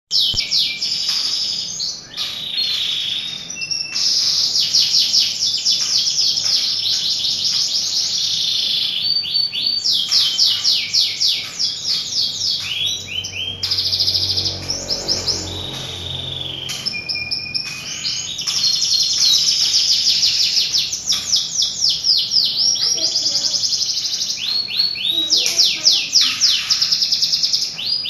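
Domestic canary singing a long, continuous song of fast trills: runs of rapidly repeated sweeping notes, switching from one trill to the next with only brief breaks.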